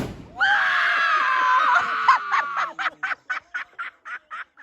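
One sharp, very loud firework bang right at the start, strong enough to be felt as a rumble underfoot. Straight after comes a woman's long scream, which about two seconds in breaks into choppy laughter, about three bursts a second.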